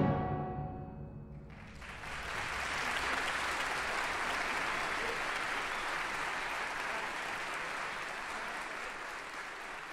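A concert band's final chord dies away in the hall's reverberation, then audience applause breaks out about a second and a half in and carries on, slowly thinning.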